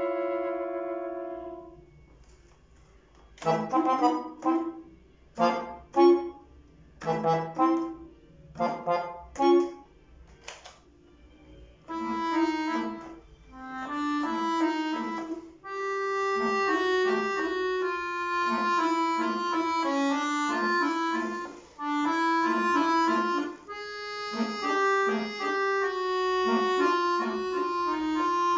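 Solo piano accordion playing: a held chord dies away, then after a brief pause a series of short, loud detached chords, and from about halfway a fast running melody over a pulsing bass.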